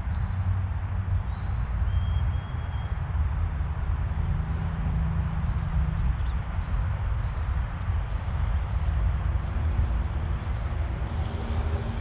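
Pine siskins and other small feeder birds calling: many short high chirps, a few thin held notes in the first few seconds and a quick rising call about six seconds in. Under them runs a steady low rumble, which is the loudest sound.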